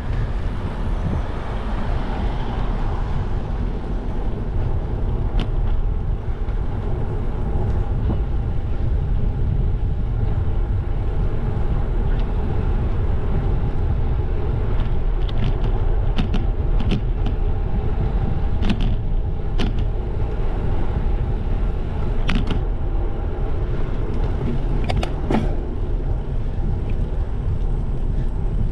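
Steady low rumble of wind and tyre noise on a bicycle-mounted GoPro while riding on a paved road, with scattered sharp clicks and rattles, most of them in the second half.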